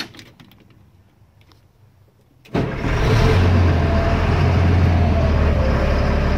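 A click, then about two and a half seconds in the LMTV's Caterpillar 3116 turbo diesel fires up and settles straight into a steady idle, heard from inside the cab.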